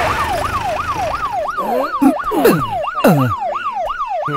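Police vehicle siren in a fast, repeating wail, about three pitch sweeps a second. About a second and a half in, lower wavering sounds and a few sharp knocks join it.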